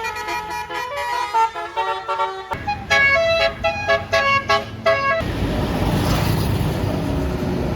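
Bus telolet musical air horn (Basuri horn kit) playing a fast multi-note melody, the notes changing several times a second. About five seconds in, the melody gives way to a loud, steady rushing noise.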